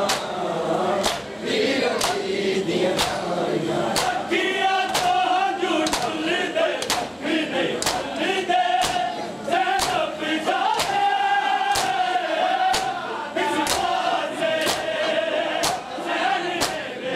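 Crowd of men chanting a noha together while beating their chests in matam: sharp hand slaps land in unison at a steady beat, about one every three-quarters of a second, over the group singing.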